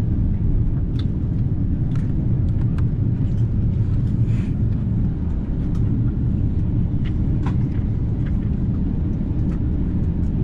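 Airbus A350-900 cabin at takeoff: a steady low rumble of the Rolls-Royce Trent XWB engines at takeoff power and the wheels on the runway, with scattered light rattles and clicks from cabin fittings.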